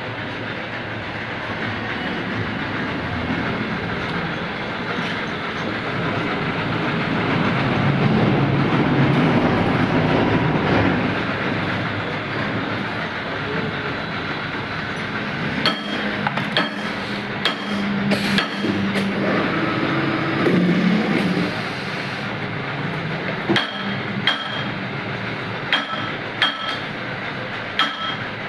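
Automatic coupler grooving machine running, a steady mechanical clatter that swells for a few seconds near the first third. From about halfway on, sharp metallic clinks come every second or so, some ringing briefly.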